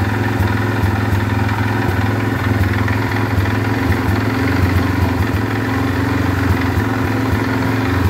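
Dinli 801 350cc ATV engine idling steadily, its idle set a little high.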